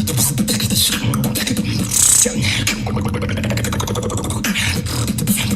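Human beatboxing: dense rapid mouth clicks over a low bass hum, with a short hissing burst about two seconds in. It is a wet, liquid-sounding technique that sounds like drinking water.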